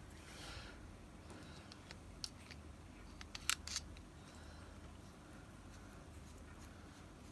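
Close-up handling of a pen and its packaging: a soft rustle, then a few small sharp clicks, the loudest a quick pair about halfway through.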